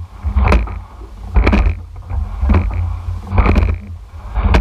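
Rowing eight under way, close up at the rigger: oars knocking in their oarlocks about once a second with the stroke, over a steady low rumble of wind and water on the microphone.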